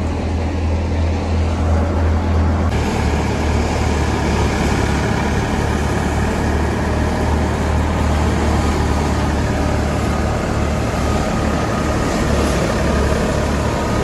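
Tractor-driven paddy thresher running steadily while threshing paddy, a loud continuous mechanical din with a strong low drone from the tractor engine and threshing drum. The sound shifts abruptly about three seconds in, then stays even.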